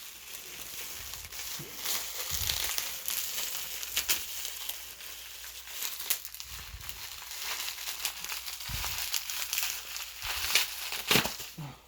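Packing material in a cardboard shipping box rustling and crinkling as soda bottles are dug out by hand, with a few sharp knocks.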